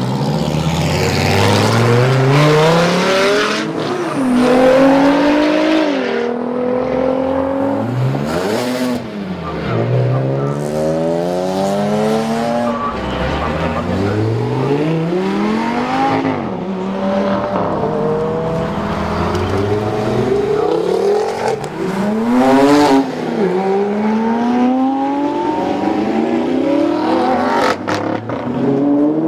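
A run of sports cars accelerating hard past one after another. Each engine note climbs steeply and drops back at the gear changes, again and again.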